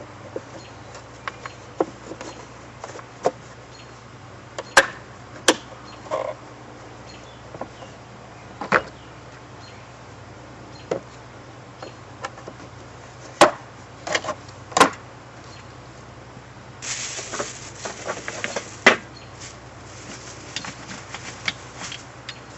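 Scattered sharp knocks and clicks of parts being handled, irregular and a few seconds apart, with a short rasping noise about two seconds long near the end, over a faint steady low hum.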